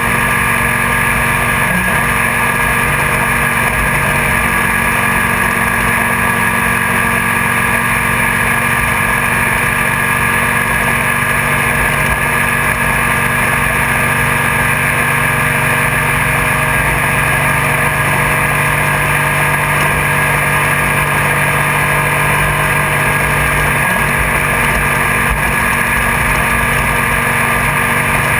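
Engine and drivetrain of an off-road race vehicle running hard and steadily at speed, heard from inside the cockpit with loud wind and rattle noise. There are two brief breaks in the engine note, about two seconds in and again near the end.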